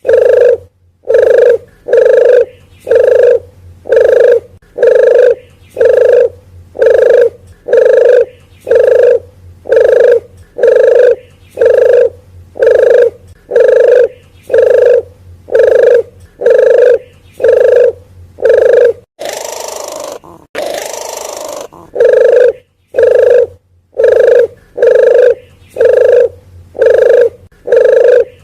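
Lure call for the puter geni (forest dove): a fast, even run of identical short coo notes, about one and a half a second. The run breaks for about two seconds after a little over the first two-thirds, when two louder rushing, sweeping sounds come in, then picks up again at the same pace.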